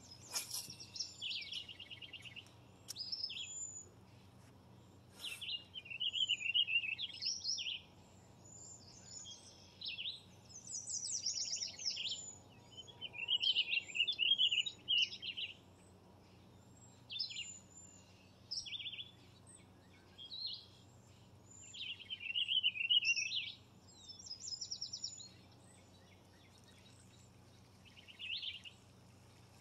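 Songbirds singing: short, high warbled and trilled phrases repeating every second or two, over a faint steady low hum. There is a single short click about five seconds in.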